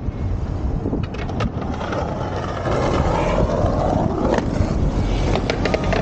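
Hard skate wheels rolling over stone paving slabs, steady and noisy, with a few sharp clicks, getting louder about halfway through; wind on the microphone.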